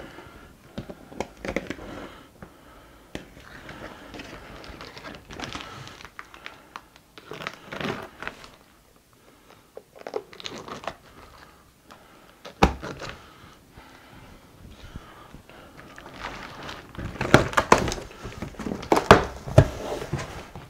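Cardboard shipping box being opened: a blade slitting the packing tape along the seam, then the flaps worked open with scraping and crinkling. There is one sharp knock about two-thirds through and a busy run of clicks and scrapes near the end.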